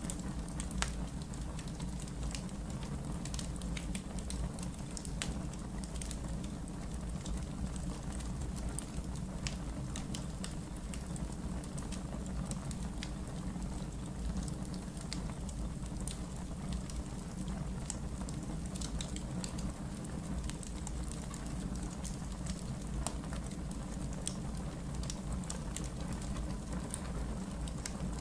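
Wood fire burning in a fireplace: a steady low rumble of flame with dense, irregular crackles and pops from the burning logs.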